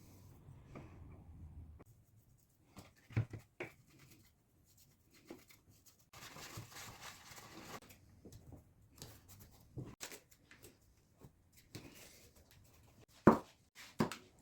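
Handling of wooden box parts: scattered light taps and knocks, about two seconds of rubbing or scraping midway, and a sharp knock near the end.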